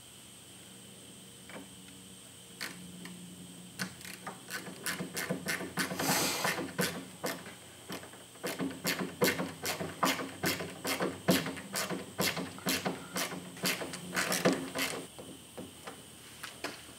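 A wood screw being driven by hand with a screwdriver into a pine board, a quick run of clicks and creaks, several a second, from about four seconds in until near the end.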